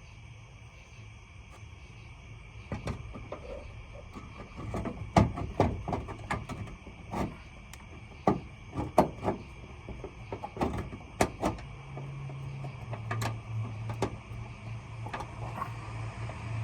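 Bolts and a metal anchor plate knocking and clicking irregularly as they are worked and forced into place during a test fit. A steady low hum runs underneath.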